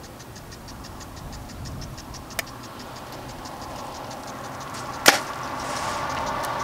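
A compound bow shot about five seconds in: a single sharp crack as the string is released, after one faint click a couple of seconds before it. A steady, fast, faint ticking runs underneath, and a passing vehicle rises near the end.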